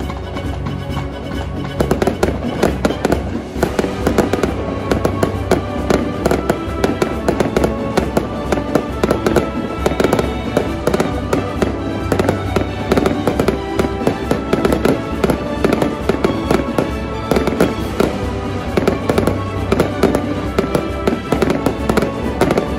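Fireworks display: a dense, irregular run of bangs and crackles from aerial shells and rising comets, mixed with background music.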